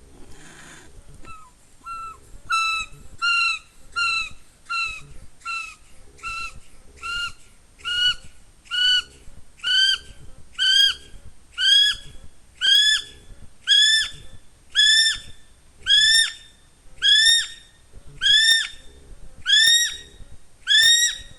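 Male North Island brown kiwi giving a short grunt, then his call: a long series of shrill, rising whistles, about one and a half a second, that start thin and short and grow longer, higher and louder as the call builds.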